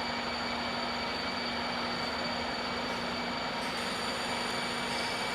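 A bus giving out a continuous, steady whining tone made of several held pitches, with no pauses or beeps.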